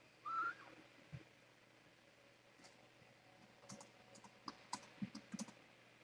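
A newborn kitten gives one short, high squeak about half a second in. Later comes a scattered run of soft, quick clicks.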